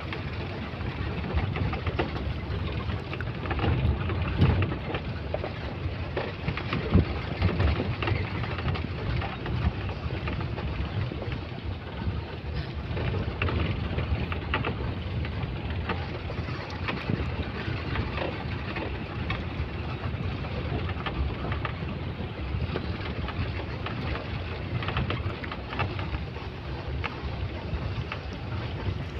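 Open-top safari jeep driving along a dirt forest track: steady engine and tyre noise with wind rushing past the microphone. Occasional jolts and knocks from the rough road, the loudest twice in the first several seconds.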